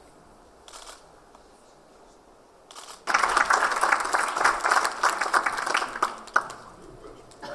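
Two short clicks, then audience applause breaks out about three seconds in and dies away about three seconds later.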